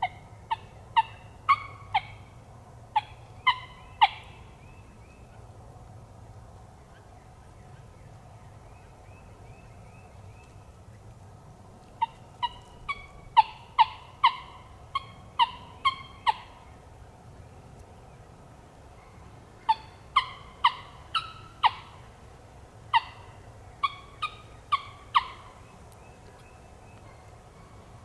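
Turkey yelping: three runs of sharp, evenly spaced yelps, about two a second, at the start, around the middle and near the end.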